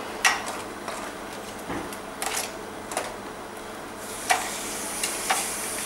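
Kitchen work at the stove: a few scattered light clicks and knocks of utensils against a pot, over a steady hiss that grows brighter about four seconds in.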